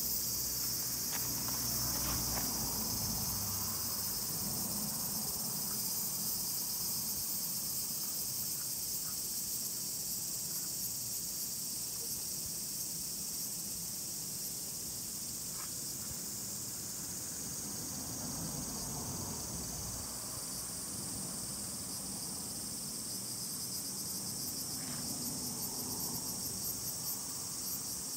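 Steady, high-pitched chorus of insects singing, with a few faint clicks and rustles near the phone.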